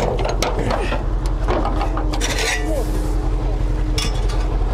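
Scania 143M truck's V8 diesel engine running steadily at low revs as the truck creeps forward into position, with knocks and rattles from the truck. A steady tone joins the engine about a second and a half in.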